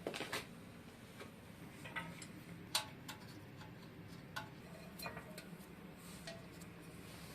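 Scattered light clicks and taps at irregular intervals, a few sharper than the rest, over a faint low hum.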